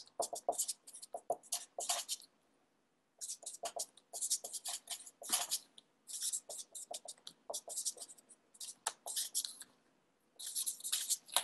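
Writing on paper by hand: runs of quick scratchy strokes of a pen or pencil tip, with a pause of about a second between two and three seconds in.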